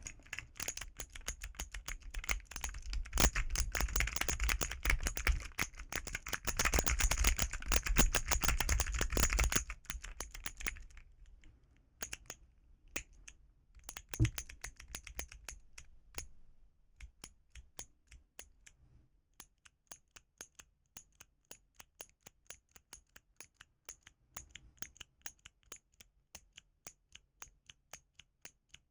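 Keys of a mechanical-keyboard fidget toy being pressed: fast, dense clacking for about the first ten seconds, then slower and fainter single clicks settling into an even run of about three a second.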